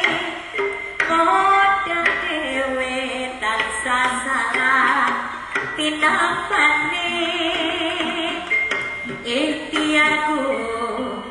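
Jaranan accompaniment music playing live, with a woman singing the melody in long, wavering held notes.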